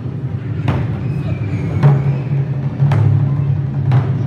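Taiko ensemble drumming on large barrel-shaped drums: four sharp stick strokes about a second apart over a steady low booming rumble.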